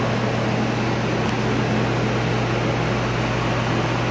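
A steady low hum over an even hiss, unchanging throughout, like a running fan or similar machine.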